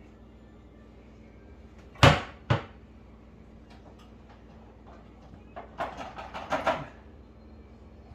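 Hard knocks and clatter of a GE microwave's panel and housing being pried and worked loose by hand: two sharp knocks about two seconds in, then a quick run of rattling knocks near the end.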